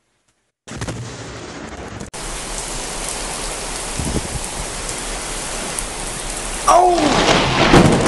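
Steady rain and wind hiss from a thunderstorm, broken near the end by a sudden loud thunderclap from a lightning strike that rumbles on for about two seconds.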